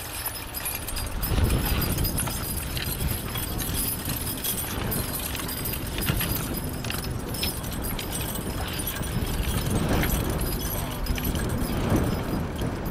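Jingling and clinking of the harness and trace chains of a pair of Shire horses pulling a plough, under a steady rumble of wind on the microphone that swells about a second in.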